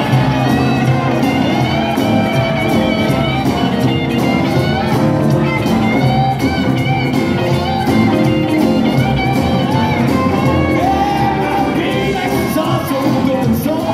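A live rock-and-roll band with a saxophone section, electric guitars, upright bass, piano and drums playing a song, heard in a concert hall from the audience.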